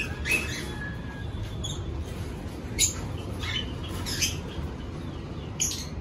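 Small pet parrots giving about five brief, sharp chirps scattered over a few seconds, over a steady low rumble.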